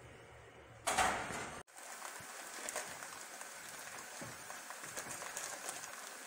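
A short loud clatter about a second in as the pot is set on the stove, then dry brown rice grains pouring from a plastic bag into a ceramic mug: a steady pattering hiss with many small ticks.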